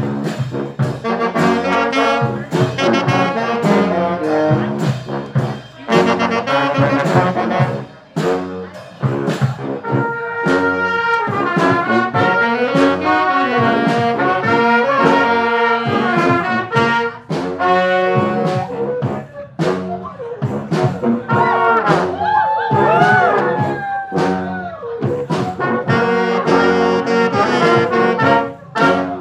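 Brass band playing a lively tune live: trombones and trumpets over a steady drum beat. About three quarters of the way through, a horn line bends and slides in pitch.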